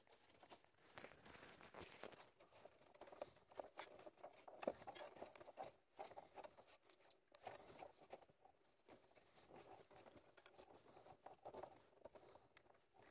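Faint rustling and light ticking of electrical wires and cables being handled and pulled through a wiring bundle, with a slightly sharper click about halfway through.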